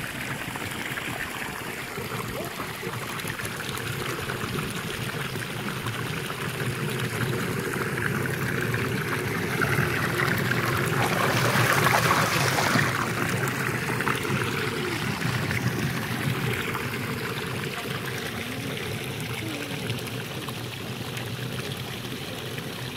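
Cold spring water pouring from a wooden spout into a concrete channel, a steady splashing rush that swells to its loudest about halfway through and then eases off.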